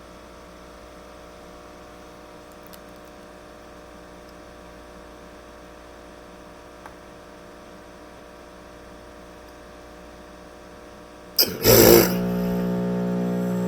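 Carrier AQS heat pump starting up: a steady low hum, then about eleven seconds in a sudden loud burst, after which the unit settles into a much louder steady hum.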